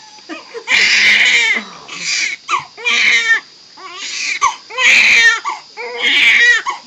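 Newborn baby crying hard while being washed: a run of loud, high-pitched wails, about five of them, with short pauses between.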